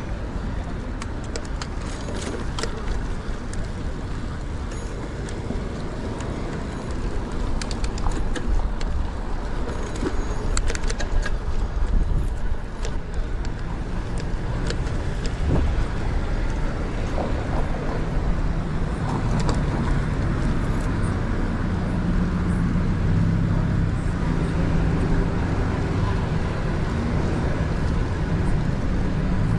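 Road traffic heard from a bicycle riding among cars, with wind rumble on the microphone and scattered clicks. A steady low engine hum from nearby cars comes in about halfway through and holds.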